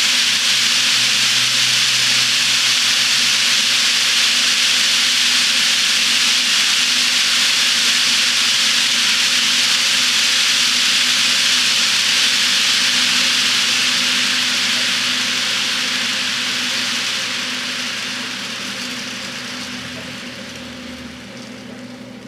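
HO scale model freight train running on a K'NEX spiral helix: a steady rushing hiss of its many metal wheelsets rolling on nickel-silver track, with a steady low hum underneath. The sound fades gradually over the last several seconds.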